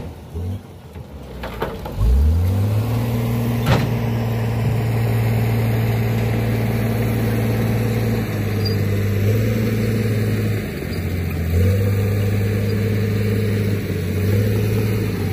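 Mitsubishi Canter dump truck's four-cylinder diesel engine revving up about two seconds in, then running steadily at raised speed, its pitch shifting a few times as the truck pulls away. Two sharp knocks come early, the louder one about four seconds in.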